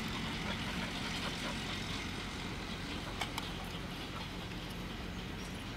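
Steady low engine-like hum over outdoor background noise, with a couple of faint clicks about three seconds in.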